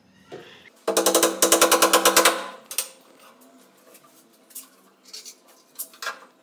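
A cordless impact driver runs for about a second and a half, hammering rapidly as it drives a screw into the wooden cabinet frame. A few light knocks and clicks follow as the frame is handled.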